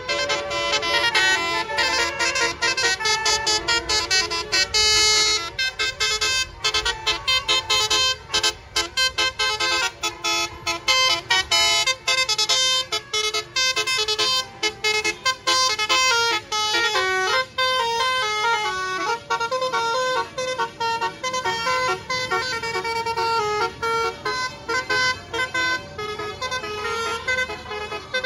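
A bus's Basuri 'telolet' multi-trumpet musical horn playing a quick tune, many short notes stepping up and down in pitch with brief breaks between them.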